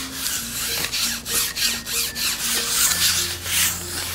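Baren rubbed hard in brisk strokes over the back of a sheet of paper laid on an inked woodblock, hand-pressing a block print. A dry, scratchy rubbing, about two to three strokes a second.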